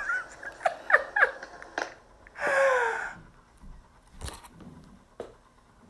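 A woman laughing and squealing in short falling cries, then one longer falling exclamation, with a couple of light clicks near the end.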